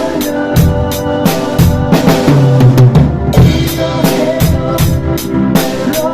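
Drum kit played along to a recorded contemporary worship song. Kick drum, snare and cymbals keep a steady beat of about four strokes a second over the band's music.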